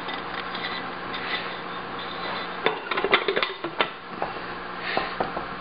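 The lid of a 1950 Oak Acorn All-Charm vending machine being fitted onto its chrome-framed body. There is a quick run of light metallic clinks and taps about halfway through, and a few softer taps near the end.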